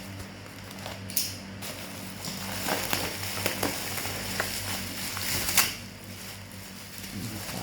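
Packaging and objects being handled: scattered clicks, taps and short rustles, the loudest about a second in and again about five and a half seconds in, over a steady low hum.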